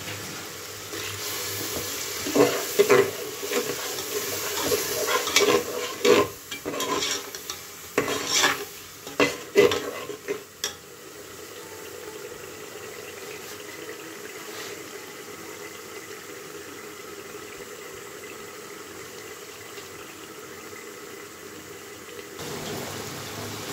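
Steel slotted spoon stirring chicken in hot masala in an aluminium pressure-cooker pot, scraping and knocking against the metal, for about the first ten seconds. After that only the steady sizzle of the chicken frying in the oil.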